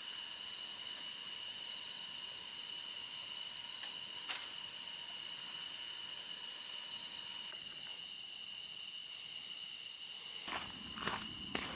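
Crickets chirping in a steady high trill. About two-thirds of the way in, a louder chirp pulses about four times a second, then the sound drops abruptly near the end and a few faint clicks follow.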